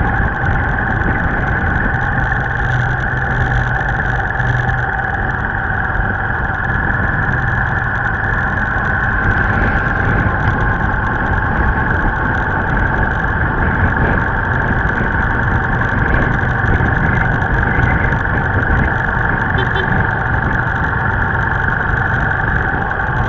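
Steady engine hum with road and wind noise from a moving vehicle, heard from the vehicle itself as it cruises at an even speed.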